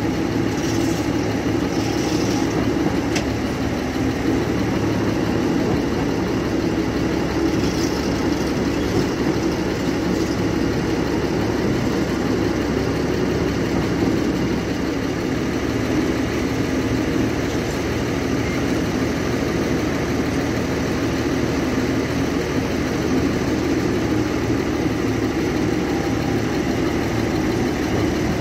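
Ruston Bucyrus 22RB dragline's engine running steadily as the machine drags in its bucket, hoists it and lowers it again. A few faint clicks come through in the first ten seconds.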